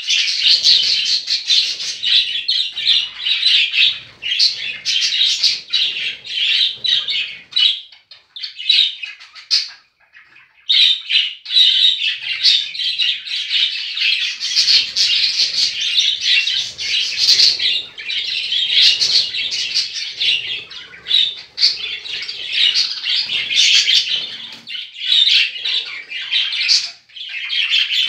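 Pet budgerigars chattering, with dense overlapping chirps and squawks, a brief lull about eight to ten seconds in.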